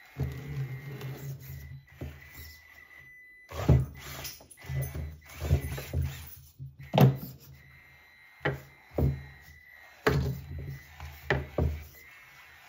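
Traxxas TRX4M 1/18-scale crawler driving in short stop-start bursts over a hard tabletop: its small electric motor and drivetrain whir in bursts, broken by sharp knocks and clicks.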